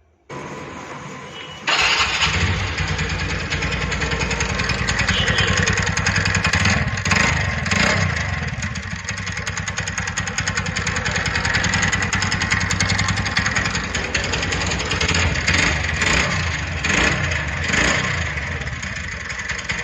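TVS Ntorq 125 scooter's single-cylinder engine is cranked, catches after about a second and a half, and runs with a rough, rattling knock, rising and falling a few times. This is a very bad engine noise, traced to a loose one-way (starter) clutch nut and lock washer behind the magneto cover.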